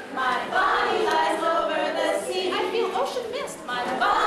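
A group of children singing together in chorus, the voices blended with some held notes.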